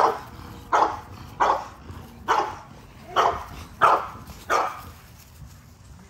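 A dog barking repeatedly at another dog: seven sharp barks at an even pace, about one every three quarters of a second, stopping after about four and a half seconds.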